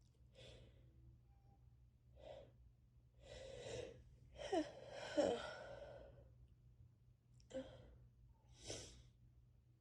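A person with a head cold takes several short breaths, building to a sneeze about four and a half seconds in that breaks out in two sharp voiced bursts. Two shorter sharp breaths or sniffs follow near the end.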